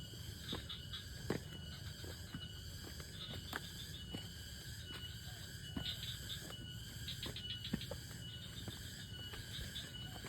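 Insects chirping in rapid pulsed trills over steady high-pitched ringing tones. A few short knocks are scattered through it, the loudest about a second in and again near the eighth second.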